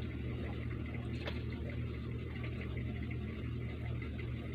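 A person drinking water from a plastic bottle: faint sips and swallows over a steady low hum.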